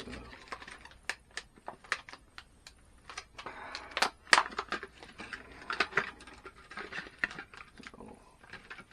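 Handling noise: scattered clicks, taps and rustling as small boxes of brad nails are picked up and handled, with a few louder knocks in the middle.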